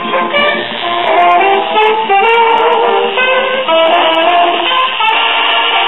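Music from a 78 rpm record, played by the Dynavox wireless record player's crystal cartridge and tube transmitter and heard through the speaker of a Zenith Royal eight-transistor portable radio. Clear music coming through shows the old crystal cartridge is still working.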